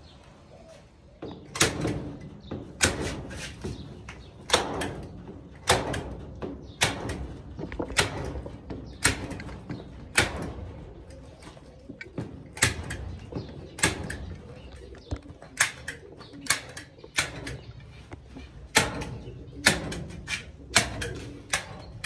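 Nails being hammered through artificial grass turf into a wall, sharp strikes about once a second, sometimes two in quick succession.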